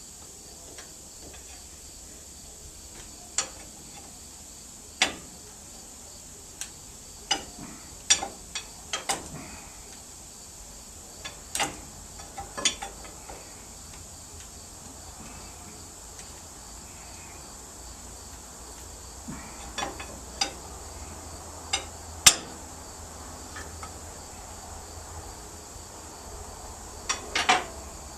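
Irregular sharp metallic clinks and knocks of hand tools on tractor engine parts during cylinder head removal, the loudest about 22 seconds in, over a steady high chirring of crickets.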